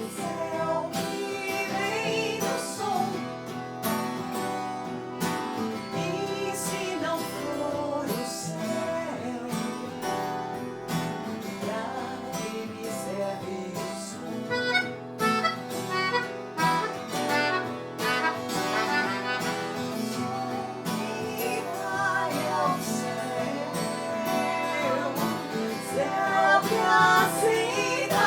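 Music: acoustic guitar playing, with a wavering melody line above it.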